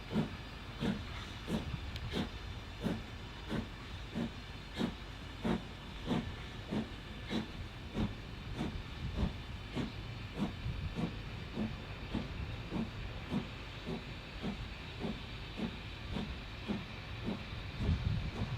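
LMS Stanier Black 5 steam locomotive working under steam: steady exhaust chuffs, about three every two seconds, over a steady hiss of steam.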